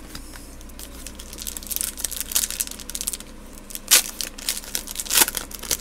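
Foil trading-card pack wrapper crinkling as it is handled and torn open, with two louder crackles about four and five seconds in.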